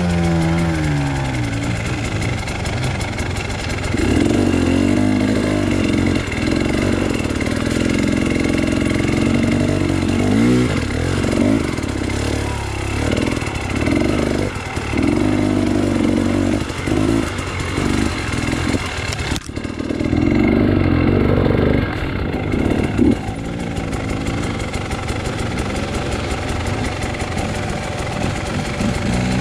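Off-road dirt bike engine running while ridden over rough singletrack, revs rising and falling in repeated throttle bursts with lower-rev stretches between. A sharp knock comes about 19 seconds in.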